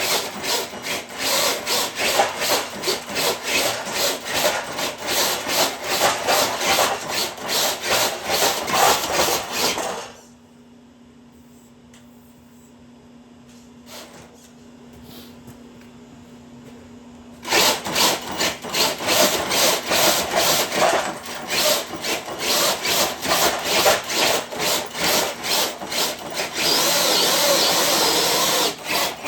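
Rough, rhythmic scraping and rasping of a dead sled dragged over the ground behind an RC truck. It stops for several seconds in the middle, leaving only a faint steady hum, then starts again and runs denser and continuous near the end.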